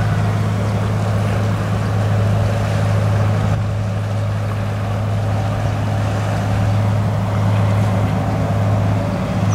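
A ship's engine droning steadily at a low, unchanging pitch.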